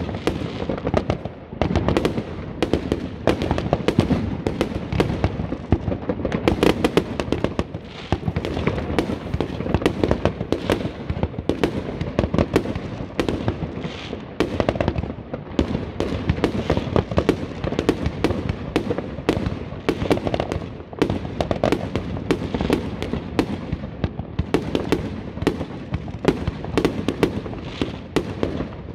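A 30 mm, 147-shot consumer fireworks cake (Extreme Fireworks Bonneville) firing without pause: launch thumps and shell bursts follow one another in quick succession, several a second.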